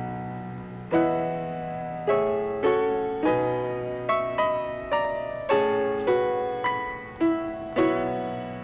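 Background piano music: notes and chords struck about every half second to a second, each left to ring and fade.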